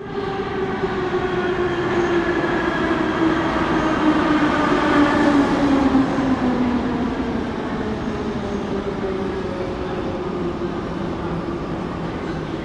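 Metro train pulling into a station and braking: its traction motors whine in a tone that falls steadily over the first seven seconds or so, over a constant rumble of wheels on the rails.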